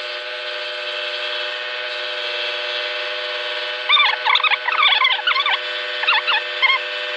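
Scroll saw running steadily, a constant hum with hiss as its blade cuts plywood. About four seconds in, a rapid run of short high chirping squeaks starts over it.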